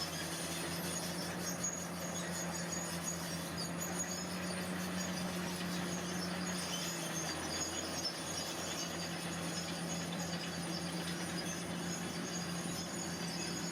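Heavy diesel earthmoving machine running steadily, its engine giving a constant low hum, with high metallic squeaks like crawler tracks.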